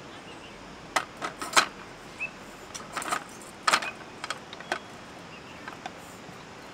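Metal clinks and knocks as the tubular metal legs of a discada skottle burner stand are fitted into its frame: a cluster of sharp clinks about a second in, more around three to four seconds in, then a few lighter taps.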